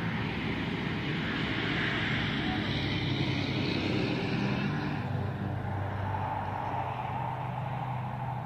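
Truck passing on a road: a rush of tyre and engine noise that builds and peaks a few seconds in, then eases into a steady low hum.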